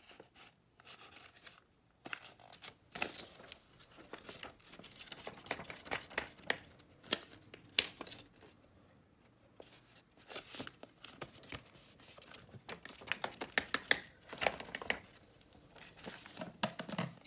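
Paper being handled: irregular rustling and crinkling with scattered sharp clicks and taps, quieter for a moment near the start and again about halfway through.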